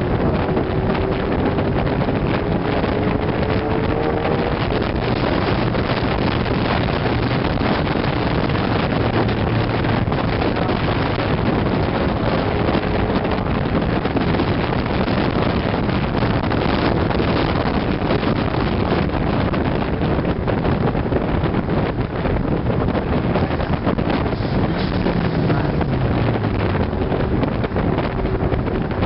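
Wind rushing over the microphone of a moving car, with road and engine noise underneath. An engine's pitch rises over the first few seconds, and another falls near the end.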